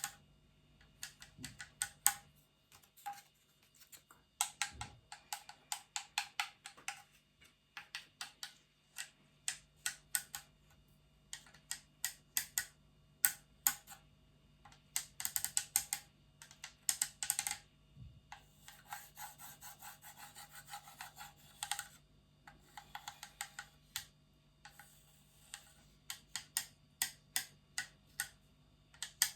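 ASMR trigger sounds: quick runs of light, crisp taps and clicks on a small object, with a few seconds of continuous scratching about two-thirds of the way through.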